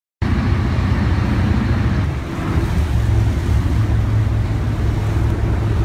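Pilot boat's engines running steadily at speed, a low drone, with water rushing past the hull.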